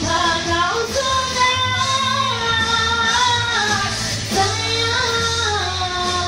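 A woman singing into a handheld microphone through a PA system over backing music. She holds long notes that bend and waver in pitch.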